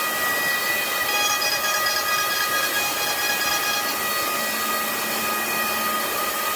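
CNC router's high-speed spindle running and cutting wood, a steady whine of several tones over a hiss; higher tones join about a second in.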